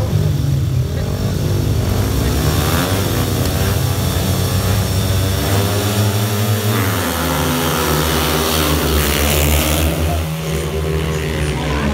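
A pack of speedway motorcycles racing, their single-cylinder 500 cc methanol engines at high revs, the pitch rising and falling repeatedly as the bikes accelerate and back off through the bends.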